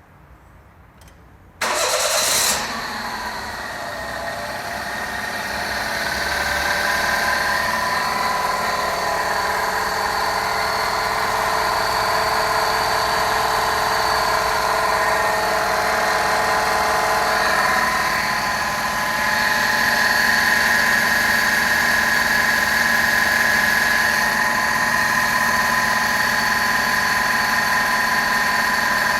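Daihatsu Mira (L275S) engine cranked and started about two seconds in, then idling steadily with a whine of several steady tones running over the engine sound. The owner attributes the whine to the water pump; it persists with the air-conditioning compressor belt removed.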